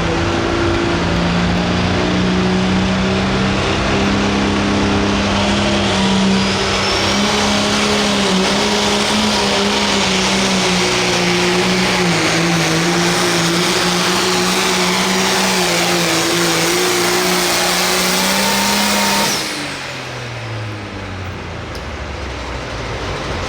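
Hot farm class pulling tractor's diesel engine held at full throttle under load, a steady high engine note with a faint high whine above it. About 19 seconds in the throttle comes off and the engine note falls away quickly to a lower run.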